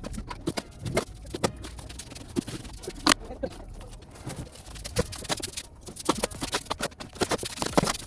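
A series of irregular knocks, clicks and clatters at an uneven pace, one sharp knock about three seconds in and a quick cluster near the end.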